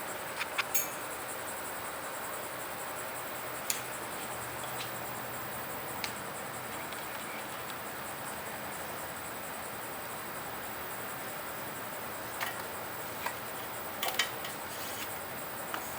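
Steady background hiss with scattered small clicks and taps as a bicycle brake cable and housing are handled and pressed into the cable slots along the frame.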